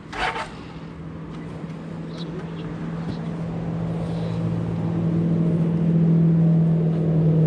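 BMW GS boxer-twin engine running at a steady idle after being started with a booster pack, growing louder over the first five seconds and then holding steady. A short loud rush of noise comes just after the start.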